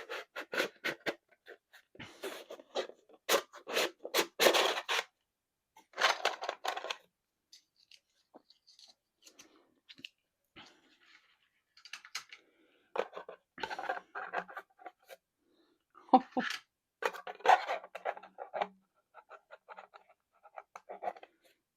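Hands handling a small drill-storage case and its parts: irregular clicks, scrapes and rustles in clusters, with quiet gaps between them.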